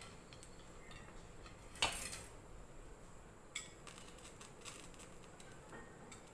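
Kitchen utensils and dishes clinking and clattering. There is one louder clatter about two seconds in, then a run of light clicks and taps.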